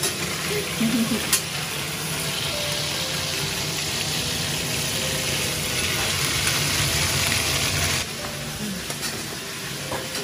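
Food sizzling as it fries in hot oil in a pan, rising a little and then dropping off sharply about eight seconds in.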